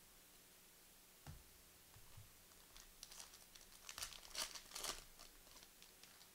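A soft thump, then a trading card pack's foil wrapper crinkling and tearing as it is ripped open, thickest about four to five seconds in.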